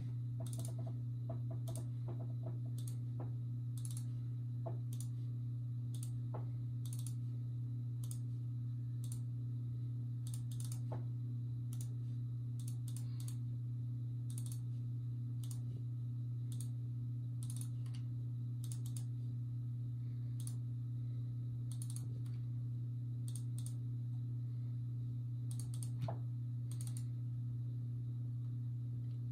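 Scattered clicks of a computer mouse, some single and some in quick pairs, over a steady low hum.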